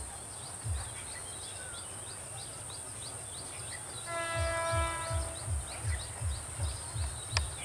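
Locomotive horn of an approaching train, one steady blast of a little over a second about four seconds in. It is followed by a low rhythmic thumping at about two to three a second. Small birds chirp throughout.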